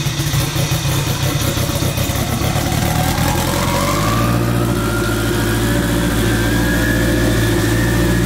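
Turbocharged Honda K20 inline-four idling loud just after its first start-up. About three to four seconds in, the idle comes up and a whine climbs in pitch, then holds steady.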